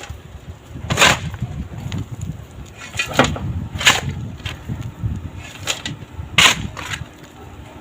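Hand tools knocking and clinking on metal parts during work on a vehicle, about eight sharp strikes, the loudest about a second in and another past the middle, over a low rumble.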